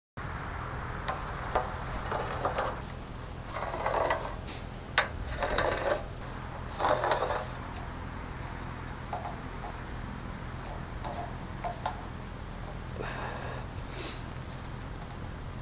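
A wooden board being set down and shifted across a round steel mesh grate, scraping and knocking on the metal, with one sharp click about five seconds in. After that come lighter scrapes as a line is marked on the grate, and one more scrape near the end.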